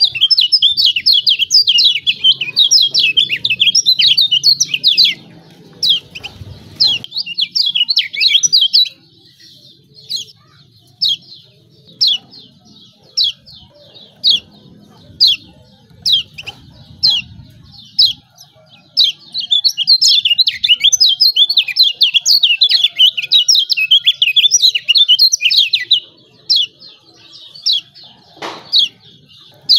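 Kecial kuning (Lombok white-eye) giving its 'ciak ciak' calls: long runs of rapid, excited high chirps, twice, separated by slower single chirps about once a second.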